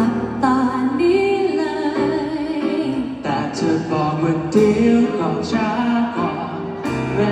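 A woman singing a slow song into a microphone, with sustained notes and vibrato, over instrumental accompaniment, heard through a live sound system.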